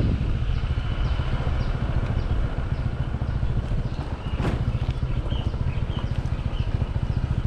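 Heavy wind buffeting the microphone, a dense fluttering rumble, which cuts off suddenly at the end.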